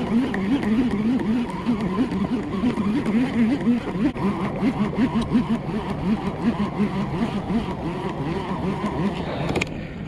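Sougayilang XLT500 conventional reel being cranked with a fish on the line, its gears whining in a pitch that rises and falls two or three times a second. The cranking stops just before the end.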